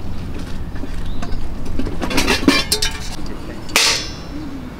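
Metal camp cookware and utensils clinking and clattering as they are handled, with a cluster of knocks a couple of seconds in and a brighter ringing clank near the end.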